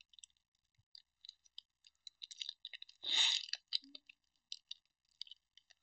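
Trading cards and foil pack wrappers handled close to a headset mic: a scatter of small crinkles and clicks, with one loud nasal sniff about three seconds in from a stuffed-up nose.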